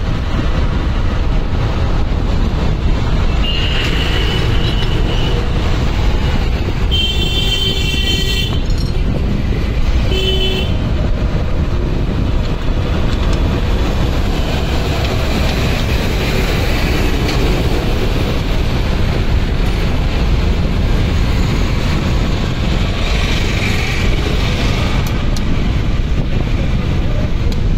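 Steady low rumbling background noise with a horn tooting twice: once for over a second about seven seconds in, then briefly about three seconds later.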